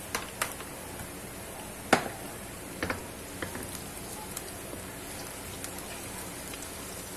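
Minced garlic frying in oil in a wok: a steady sizzle with scattered crackles, and a wooden spatula stirring and knocking against the pan, with one sharp knock about two seconds in.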